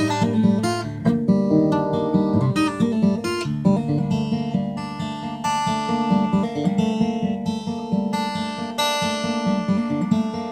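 Taylor 410ce cutaway acoustic guitar played fingerstyle in DADGAD tuning: a steady stream of plucked notes ringing over sustained low notes.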